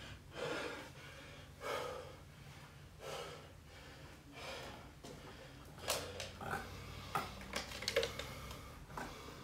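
A person breathing hard after exercise, a soft breath about every second. Several light clicks and knocks of handling and footsteps follow in the second half.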